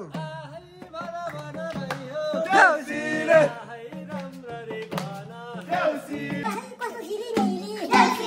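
Singing of a Deusi festival song with a madal hand drum beating along.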